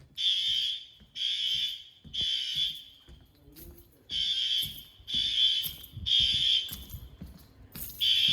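Fire alarm horns sounding the temporal-three evacuation pattern: three high-pitched blasts about a second apart, a pause, then three more, with the next round starting near the end.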